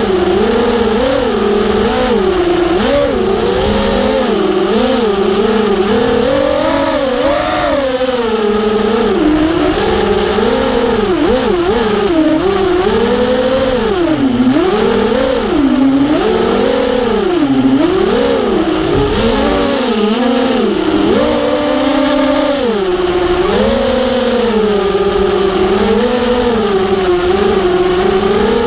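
FPV racing quadcopter's 2500 kV Skitzo brushless motors on a 3S battery whining through their propellers. The pitch rises and falls continuously in smooth swoops as the throttle is worked.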